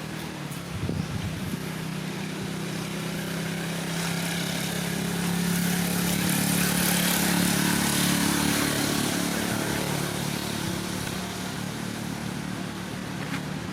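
A motor engine running steadily. It grows louder toward the middle and then fades.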